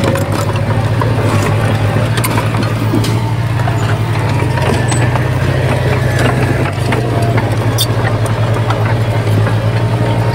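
Diesel engine of heavy earthmoving machinery running steadily, a deep drone with scattered light clicks and clanks over it.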